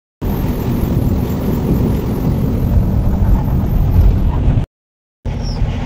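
Diesel engine and road noise inside the cab of a 2022 Ashok Leyland BS6 truck on the move, a steady low rumble. It cuts out to silence twice, for a moment at the very start and for about half a second near the end, where the footage is spliced.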